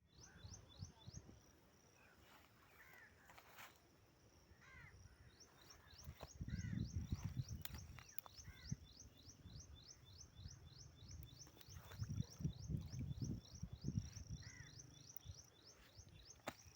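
Faint outdoor sound with birds calling: a long run of short, high, falling chirps repeating about three or four a second, a few lower chirps, and bursts of low rumble.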